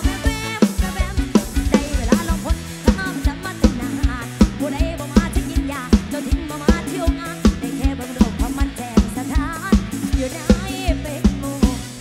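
Lam sing band playing live, mostly instrumental: drum kit keeping a fast, steady beat of bass drum and snare under a bass line and a bending lead melody.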